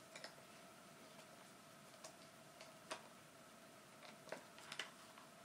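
A handful of faint, scattered clicks and taps from handling a small battery-operated plastic light set, over quiet room tone with a faint steady hum.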